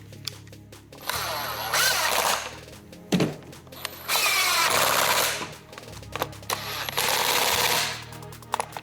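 Power driver running screws into the wheel to fasten the drive sprocket, in three bursts of a second or two each with a rapid rattling hammer.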